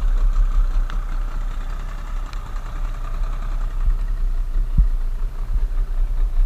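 Small boat's outboard motor running steadily at low speed with an even engine rumble.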